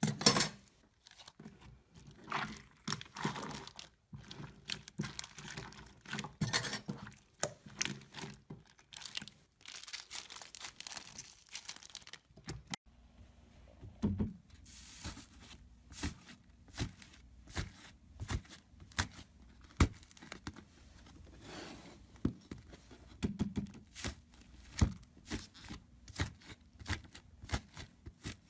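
Slime being squeezed and pulled by hand: irregular crackling, popping and tearing sounds, with a sharp pop right at the start.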